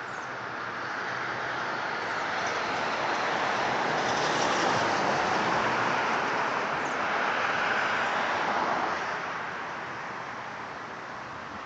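A vehicle passing on the street, its tyre and engine noise swelling over several seconds and fading away again.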